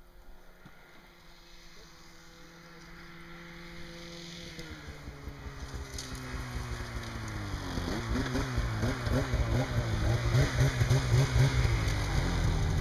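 Snowmobile engine running and growing steadily louder; its pitch drops about five seconds in, then wavers up and down over the last few seconds.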